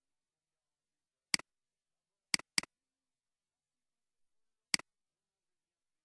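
Computer mouse clicks: four sharp clicks, one about a second in, a quick pair about a second later, and one near the end. Each click is a button press followed at once by a fainter release.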